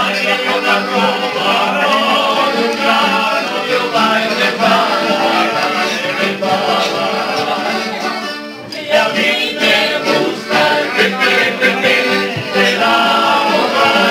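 A Spanish tuna, a group of student minstrels, singing together with guitar and accordion accompaniment. The music breaks off briefly about eight seconds in, then resumes.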